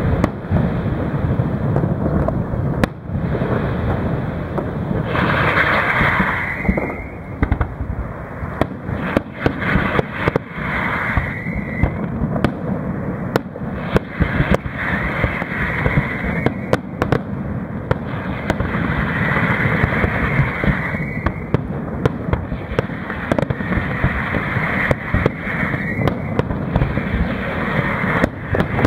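Fireworks display: aerial shells bursting one after another, many sharp bangs in quick succession over a continuous rumble of reports.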